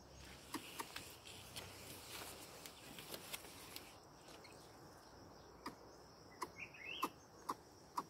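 Steady high-pitched insect drone with scattered sharp clicks and ticks, and a short wavering bird chirp about six and a half seconds in.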